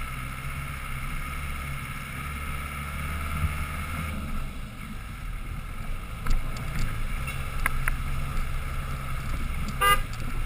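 Land Rover Defender 110's engine running steadily at low revs on a rough dirt track, heard from the roof with some wind on the microphone. Scattered knocks and rattles begin about six seconds in, and a short horn toot sounds near the end.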